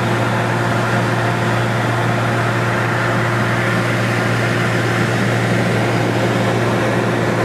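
Steady drone of a single-engine light aircraft's engine and propeller in flight, heard from inside the cabin, with a strong low hum.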